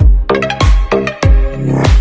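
Electronic dance music with heavy bass hits and a steady beat.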